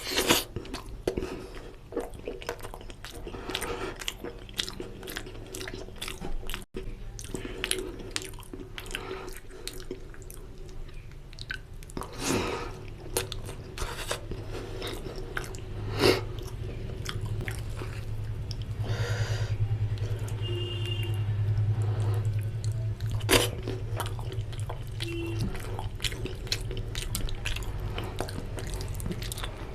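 Close-miked chewing and biting of mutton lung and intestine curry with puri, with many quick wet clicks and smacks of the mouth. A low steady hum rises through the middle and fades again.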